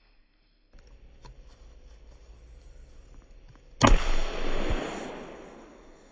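A hand-held mousetrap-style time-delay fuze going off: a sudden sharp pop about four seconds in as its ignition composition flashes, then a loud fizzing hiss that fades over about two seconds as smoke pours out. It is one of the failures the maker puts down to overfilling the fuze with ignition composition.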